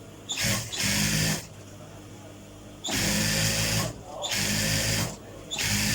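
Overlock (serger) sewing machine running in about five short bursts, each a second or less, stopping and starting between them as it stitches and trims a side seam.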